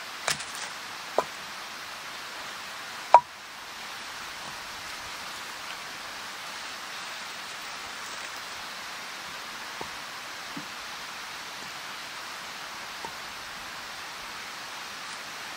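Short lengths of log knocking against each other as they are set down on a larger log: a few sharp wooden knocks, the loudest about three seconds in, then a few faint ones, over a steady background hiss.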